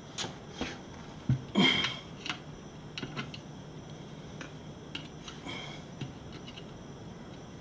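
A screwdriver and small metal parts clicking and tapping against an alloy wheel rim while an old tire-pressure (TPMS) sensor is pried loose from inside the tire. A sharp knock about a second in is followed by a louder scraping clatter, then scattered light ticks.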